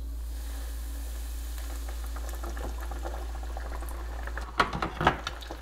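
Walleye pieces frying in a deep fryer's hot oil: a steady bubbling hiss, with two sharp knocks near the end.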